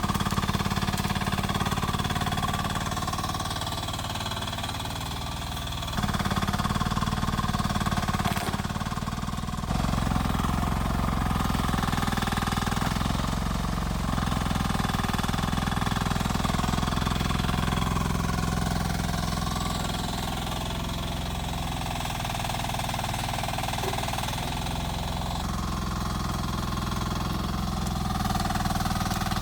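Rippa R10 mini excavator engine running steadily while it works. Its level and tone shift abruptly a few times along the way.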